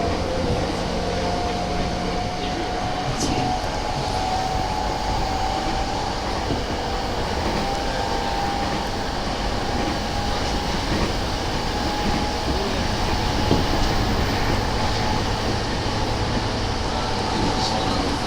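Running noise of an E217 series electric train heard inside its motor car (MoHa E216) between stations: a steady rumble of wheels and running gear on the rails, with a faint whine that creeps slightly upward in pitch through the first half.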